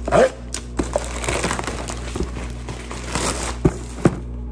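Plastic poly mailer crinkling and rustling as it is handled, with a few sharp knocks from a cardboard box being handled, two of them close together near the end.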